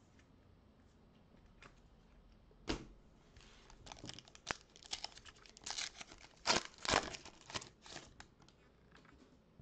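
Foil wrapper of a Panini Prestige football card pack being torn open and crinkled by hand: one sharp rip a little under three seconds in, then a run of crackling rustles that stops about a second before the end.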